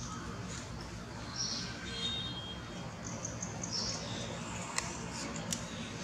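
Short high-pitched squeaks and chirps from an infant long-tailed macaque, several spread over a few seconds, with a couple of sharp clicks near the end.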